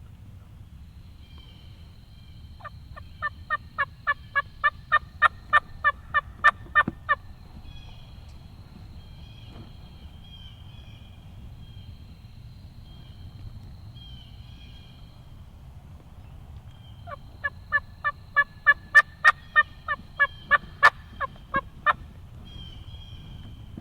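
Turkey yelping: two long runs of loud, evenly spaced yelps, about three notes a second, each run lasting about four to five seconds.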